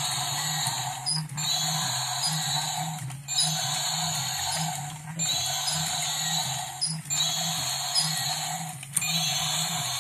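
Toy robot dragon's electronic sound effect playing through its small built-in speaker, a harsh noisy growl that repeats in loops about every two seconds. A steady low hum runs beneath it.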